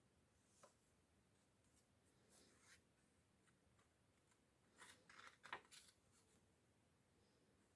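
Faint paper rustles and soft clicks of sketchbook pages being handled and turned, with a short cluster of them about five seconds in.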